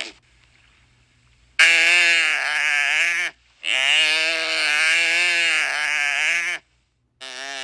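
An animal's long, quavering calls: two drawn-out cries with a wavering pitch, the second about three seconds long, then a shorter one starting near the end.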